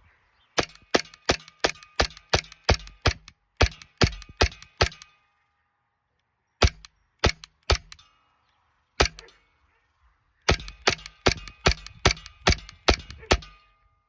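Airsoft Glock 19X Gen 5 pistol firing in quick strings of sharp cracks, about three shots a second. A pause of several seconds splits the strings, with a few spaced single shots in the middle.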